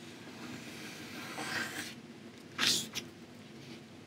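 Pencil scratching softly across gesso-coated watercolour paper as long sweeping lines are drawn, with a brief louder hiss-like burst about two and a half seconds in.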